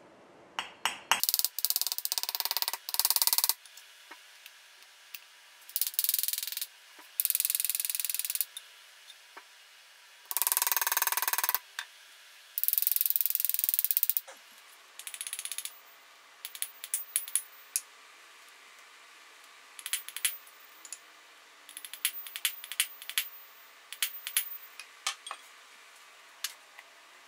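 Work on cast-iron bench vise parts with a small hammer: several loud bursts of hiss-like noise, each about a second long, in the first half, then clusters of light metallic taps and clicks.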